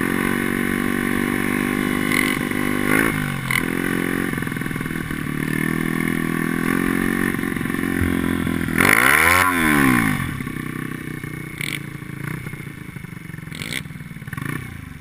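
Two-stroke grass-track kart engine running under load, heard from on board. About nine seconds in, the engine note swoops sharply down and back up, the loudest moment. The engine then runs weaker and uneven and fades as the kart ends up on its side in a rollover.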